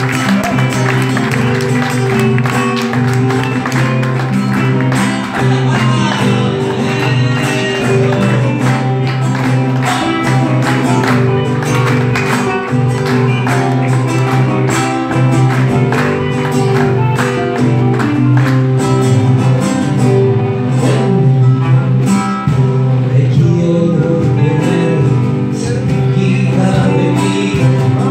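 Live music from two acoustic guitars, strummed with quick rhythmic strokes, while a man sings into a microphone.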